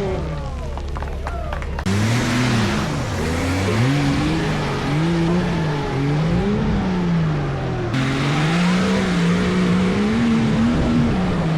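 Off-road vehicle engine revving up and down repeatedly under load, its pitch rising and falling every second or two, with sudden jumps in the sound about two seconds in and again near eight seconds.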